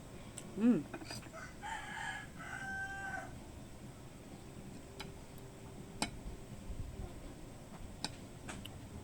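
A rooster crowing in the background in two held phrases, about two seconds in, after a short loud sound just before it. A few sharp clicks follow later.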